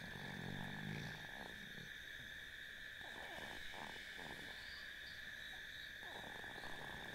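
Night-time insect chorus: a steady, high-pitched chirring that holds unchanged throughout.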